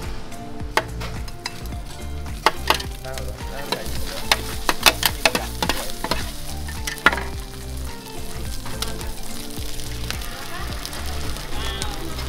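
Char koay kak (rice cake cubes) sizzling in a wide wok over a wood fire, with two metal spatulas scraping and clacking against the wok as the cook turns it. The clacks come thickest between about two and seven seconds in.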